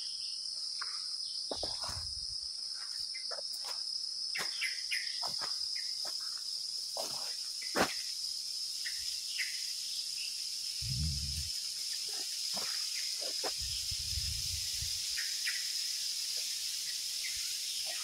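A steady high-pitched insect chorus, with scattered short bird chirps over it and a couple of low muffled thuds after the middle.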